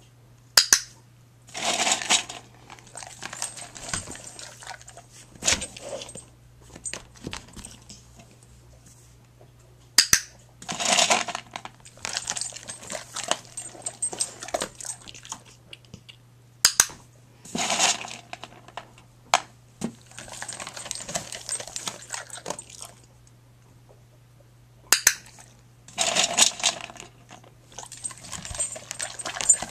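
A dog eating at a plastic bowl: four bouts of chewing and clinking, roughly eight seconds apart, each starting with a sharp click.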